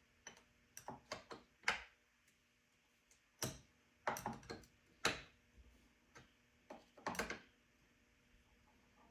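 A wrench working the guide-bar nut of a Homelite XL chainsaw as it is tightened: scattered metal clicks with a few louder scrapes and knocks at irregular intervals.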